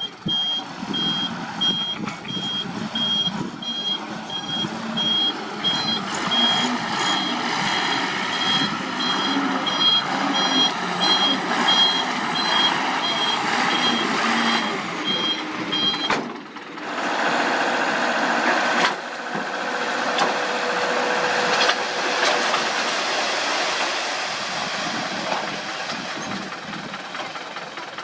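A heavy vehicle's reversing alarm beeps steadily, about one and a half beeps a second, over a running diesel engine. About sixteen seconds in, the beeping stops with an abrupt change to diesel machinery running with a steady whine.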